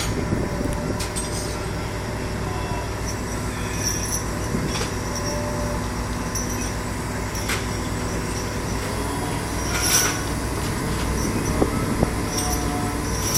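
Steady rumble of heavy cargo-handling machinery lifting a Shinkansen car off a ship, with a few sharp metallic clicks and squeaks, the loudest about ten seconds in.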